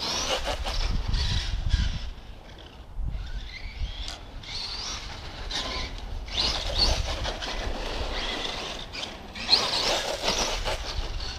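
Electric RC monster truck with a Leopard 1600kv brushless motor driving on asphalt. The motor and drivetrain whine rises in three bursts as the throttle is applied, over tyre and low rumbling noise.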